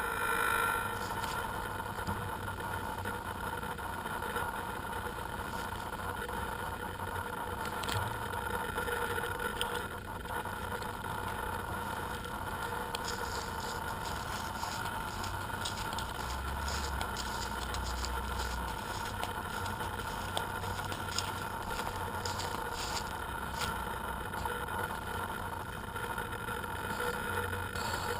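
FPV aircraft's electric motors and propellers running steadily: a continuous hum with a few constant tones and faint crackle.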